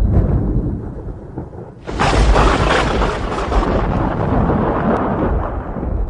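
Thunder booming: a rumble fades, then a sharp new clap breaks about two seconds in and rolls on as a long low rumble that dies away near the end.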